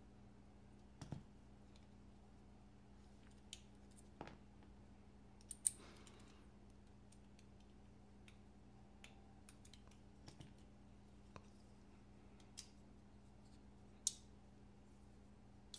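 Scattered small clicks and taps of a folding knife's metal parts and a small Torx driver being handled during reassembly, a dozen or so spread irregularly, the sharpest about five and a half seconds in and again near the end, over a faint steady hum.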